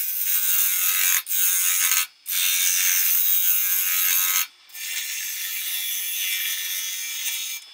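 Hurricane carbide finishing tool cutting the outside of a spinning wooden bowl blank on a wood lathe: a steady high hiss of the cutter shearing off shavings. It breaks off briefly about a second in, just after two seconds and at about four and a half seconds, and runs a little quieter over the last few seconds.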